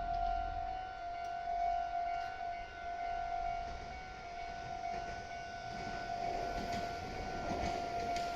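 Japanese electronic level-crossing warning bell ringing steadily as one high tone. A Meitetsu Seto Line train's rumble builds up under it near the end as the train approaches.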